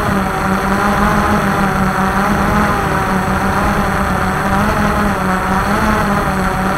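Walkera QR X350 Pro quadcopter's electric motors and propellers whirring steadily, heard from on board, the pitch wavering slightly as the motors adjust speed.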